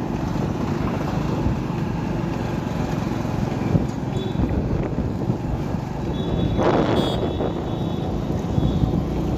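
Steady engine and road rumble from riding in an open vehicle, with wind buffeting the microphone; a brief louder rush about seven seconds in.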